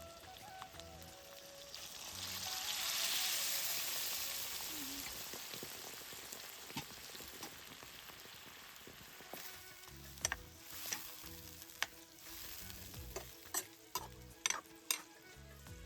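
Food sizzling and frying in hot oil in a pan as it is stirred. The sizzle swells loudest about two to four seconds in, then settles. From about ten seconds in come a series of sharp taps of the stirring utensil against the pan.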